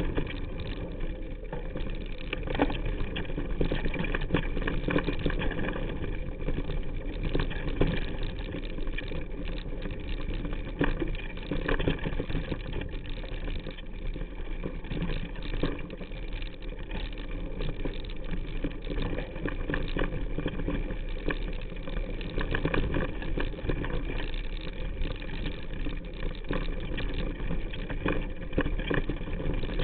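Mountain bike riding down rough singletrack, heard through a camera clamped to the handlebar: a steady rumble of tyres over the dirt trail, with frequent knocks and rattles as the bike hits rocks and roots.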